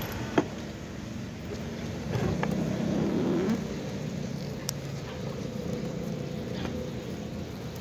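Outdoor ambience with a steady hum of traffic, a sharp click about half a second in, and a louder swell of sound between about two and three and a half seconds.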